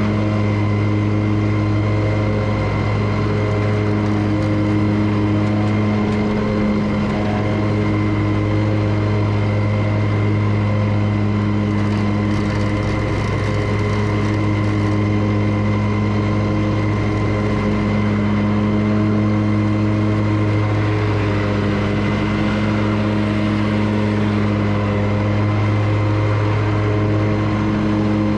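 Commercial lawn mower's engine running steadily while mowing grass, a constant drone with no change in speed.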